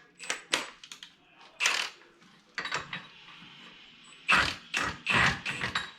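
Metal parts of a worn grader blade clanking and scraping as they are worked by hand: irregular knocks and short scrapes with a faint metallic ring, several close together near the end.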